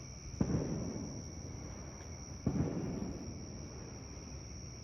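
Two distant booms about two seconds apart, each a sharp bang followed by a rolling echo that dies away over about a second.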